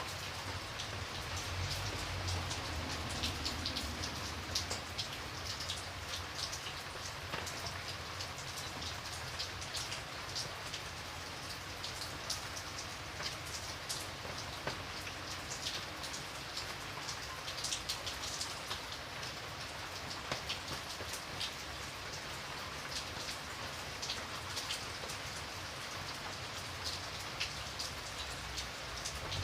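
Steady rain falling, with many individual raindrops ticking sharply on a surface over a constant hiss.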